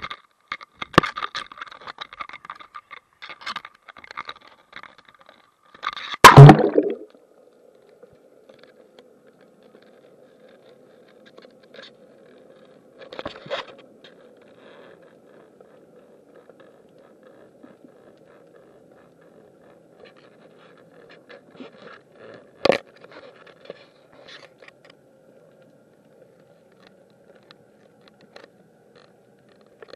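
Clattering and scraping at the sea surface, then a loud splash about six seconds in as the microphone goes under water. After that, muffled underwater sound with a steady low hum and a few sharp knocks, the loudest about 23 seconds in.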